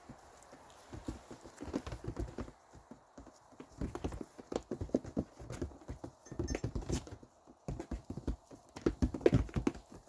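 A horse's hooves clip-clopping on hard ground, an uneven run of footfalls several a second.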